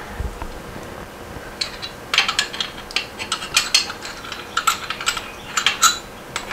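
Socket ratchet wrench clicking in short runs, starting about a second and a half in, as the nuts joining the crankcase halves are run down.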